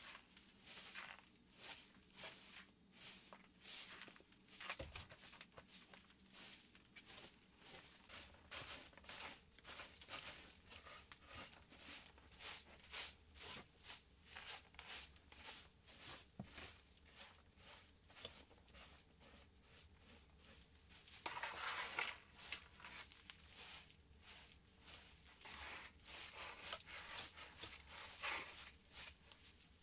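Straw hand broom sweeping wooden floorboards: a steady run of brisk brushing strokes, about two a second, with a louder scrape about two-thirds of the way through.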